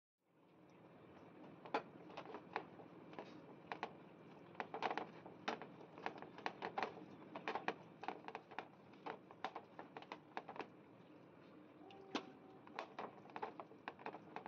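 Fingers mixing a wet spice paste on a plate: irregular soft clicks and squelches of fingers and paste against the plate, a few a second, over a faint steady hum.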